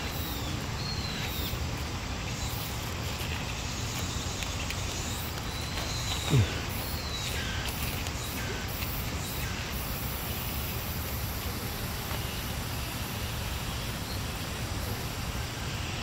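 Steady outdoor background rumble with a few short high bird chirps scattered through it, and one brief, louder sound sliding downward in pitch about six seconds in.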